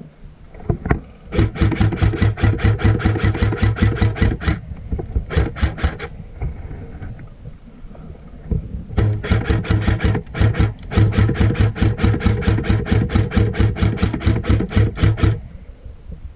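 Airsoft gun firing on full auto: rapid shots at about a dozen a second, in a burst of about three seconds, a brief burst, then a long burst of about six seconds.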